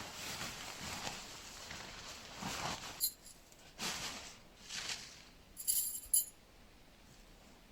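Rustling and shuffling movement, then light metallic jingling and clinking twice, a few seconds apart.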